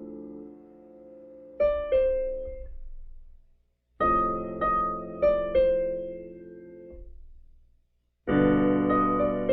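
Piano played slowly: held chords with a few short melody notes on top, each dying away, with fresh chords struck about one and a half, four and eight seconds in and brief silent gaps where the playing stops between phrases. The playing is a little rough and halting.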